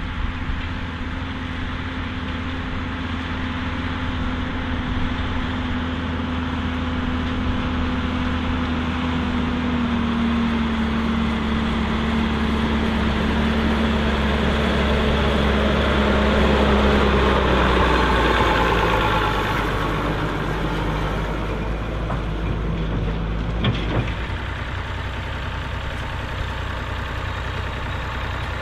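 Diesel engine of a large articulated four-wheel-drive Massey Ferguson tractor on dual wheels, running steadily under load as it works the field, its pitch easing slightly as it grows louder, loudest a little past halfway. A click comes about four-fifths of the way in, and after it a different, lower engine sound.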